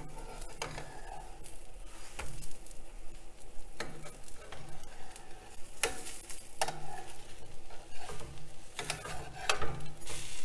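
A spatula scraping and tapping on a nonstick dosa pan as a sprouts dosa is folded, several separate strokes, over a light sizzle from the dosa cooking on the pan.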